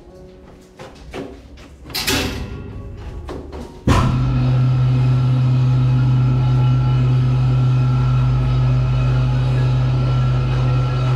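Music at first, with a short clatter about two seconds in. Then, about four seconds in, a freight lift's drive starts with a sudden loud, steady hum and keeps running as the loaded lift car travels down.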